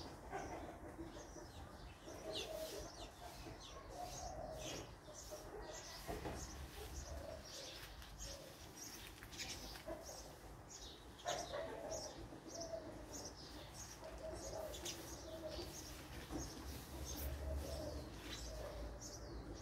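Small birds chirping: many short, high chirps repeating, with lower calls now and then beneath them.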